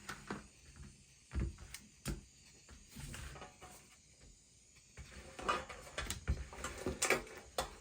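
Light knocks and clatter of objects being handled and set down on a workbench. There are a few single knocks at first, then a quicker run of them in the second half.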